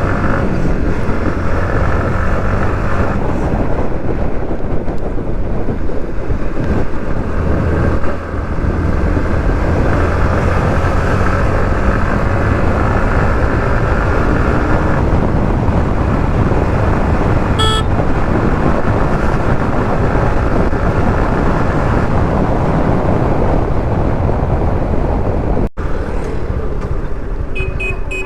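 Yamaha MT-15 v2 single-cylinder motorcycle being ridden in traffic, its engine and road noise running steadily. A brief horn toot sounds about two-thirds of the way through.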